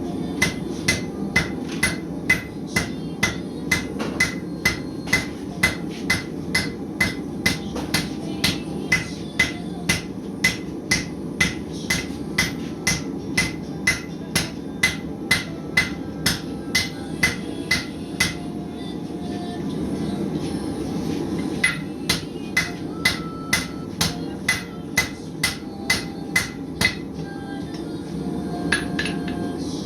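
Blacksmith's hand hammer striking hot steel on an anvil in a steady rhythm of about two blows a second, each with a bright ring; the hammering stops for a few seconds past the middle, resumes, then stops near the end.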